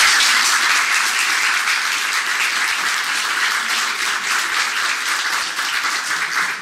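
Audience applauding: a dense, steady round of many hands clapping.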